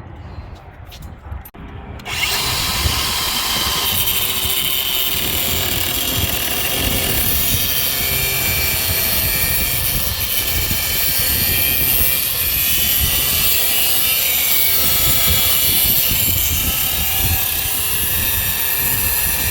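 Handheld power tool running continuously under load, a steady grinding noise that starts abruptly about two seconds in.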